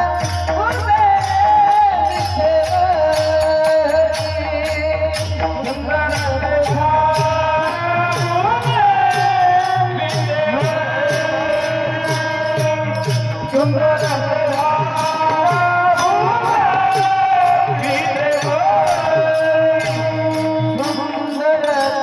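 Marathi devotional kirtan singing: a solo voice sings a slow, ornamented melody over sustained accompaniment, with a steady percussion beat.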